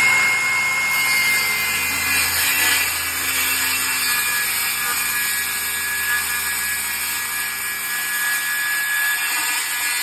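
Flex 6.5-inch in-line circular saw running at full speed and ripping through 1/2-inch plywood, a steady high motor whine over the blade's cutting noise. The whine drops slightly in pitch about two seconds in and then holds for the rest of the cut.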